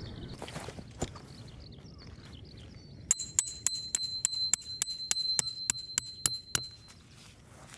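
A quick run of light metallic clinks, about six a second for three and a half seconds, over a high ringing tone.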